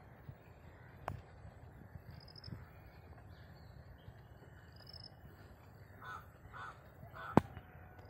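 A crow cawing three times in quick succession about six seconds in, over a steady low rumble. Earlier there are two short, high chirps from a small bird, and a sharp click comes just after the caws.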